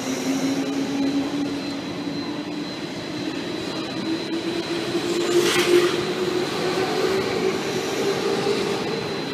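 Orange commuter electric train pulling out of a platform, its traction motors humming and rising slowly in pitch as it accelerates. A brief hiss comes about five and a half seconds in.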